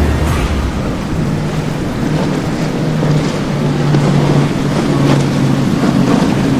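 Motorboat under way in choppy water: a steady engine drone under the rush of water, with short splashes as the hull slams through waves and throws spray.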